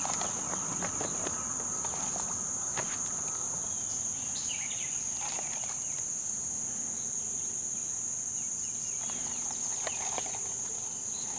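Chorus of insects calling in one steady high-pitched drone, with a few faint clicks and rustles of handling.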